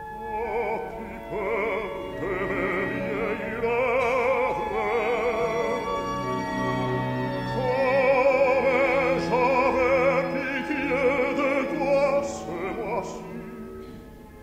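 Opera: a singing voice with wide vibrato over an orchestra, swelling louder in the middle and fading near the end.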